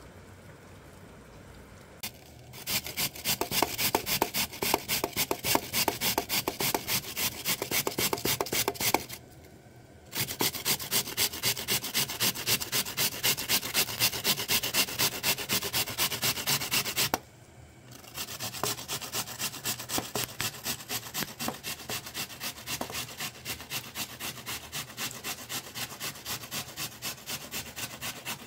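Rhythmic rasping strokes of something rubbed hard back and forth, about four a second, in three long bouts broken by short pauses about 9 and 17 seconds in.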